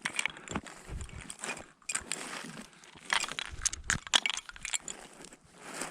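Irregular rustling and crunching with light clinking as hunters creep low through a field, their clothing and gear brushing and jingling.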